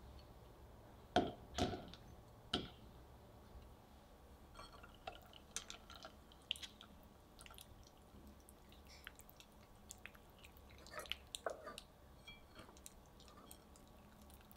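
Wire whisk stirring melting dark chocolate and butter in a glass bowl over a pot of hot water, with scattered light clicks of the whisk against the glass. Three sharper knocks come between one and three seconds in.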